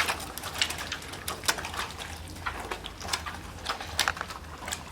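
Fingers tearing and squishing into watermelon flesh, making irregular wet squelches and crackles, recorded as foley for a zombie's guts being ripped apart.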